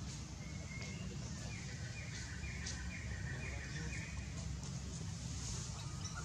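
A bird calling a run of five short, evenly repeated notes, about two a second, over a steady low background rumble.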